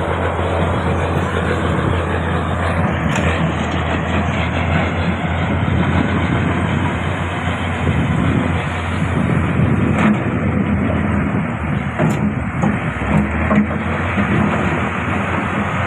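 Diesel engines of a crawler excavator and a bulldozer running steadily as they work the earth, with a few sharp metallic clanks scattered through.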